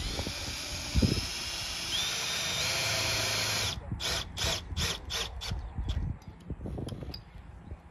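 Cordless drill with a long extension bit driving a screw into an RV awning's end cap. It runs steadily for about three and a half seconds, its pitch stepping up partway, then gives about six short trigger bursts as the screw is seated.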